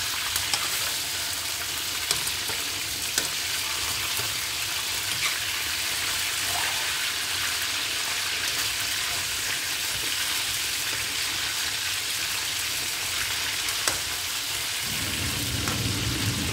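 Chicken pieces sizzling as they fry in hot oil in a wok, with a few sharp clicks of a metal ladle stirring against the pan. A low hum comes in near the end.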